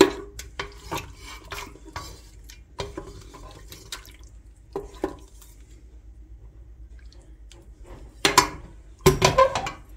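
Small wet clinks and taps of utensils on a metal pot and a ceramic plate as pieces of cooked cow's-foot stew are handled, with two louder clatters near the end.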